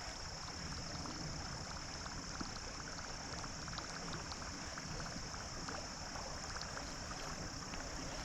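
Steady rush of flowing river water, with a constant high insect buzz above it.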